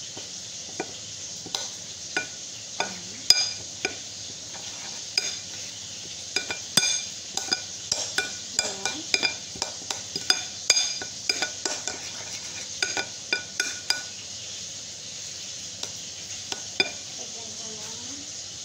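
Metal spoon stirring a wet egg batter in a ceramic bowl, clinking against the bowl again and again. The clinks come quickest in the middle and thin out near the end.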